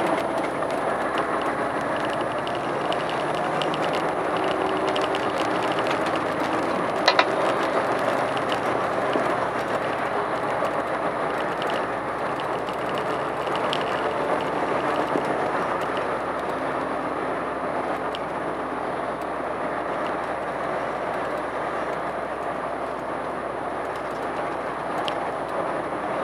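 Truck driving on the road, heard from inside the cab: steady engine and road noise throughout. A single sharp click about seven seconds in.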